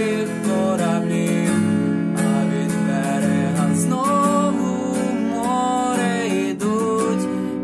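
Acoustic guitar strummed steadily while a man sings long held notes over it.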